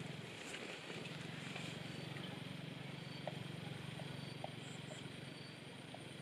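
Open-field ambience with a steady low drone and a few faint, short chirps and ticks.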